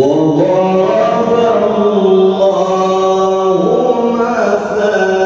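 A man chanting melodic Quran recitation, one long melismatic phrase of held notes that step up and down in pitch. It begins abruptly after a pause.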